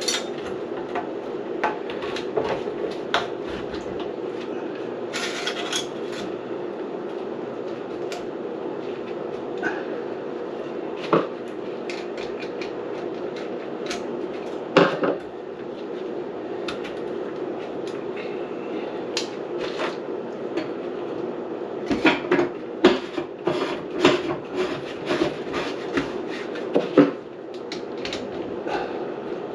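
A steady mechanical hum, like a small motor running, with scattered metallic clanks and knocks, and a flurry of sharper clanks near the end.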